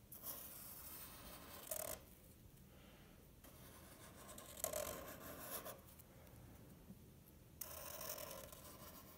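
Felt-tip marker scratching across paper in three drawn strokes of a second or two each: one at the start, one about halfway and one near the end.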